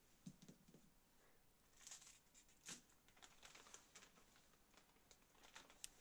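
Faint rustling of a clear plastic bag of small parts being handled, with a few light scattered clicks.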